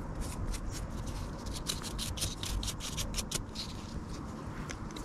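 Dry leaves and twigs rustling and crackling, with a dense run of sharp crackles through the middle.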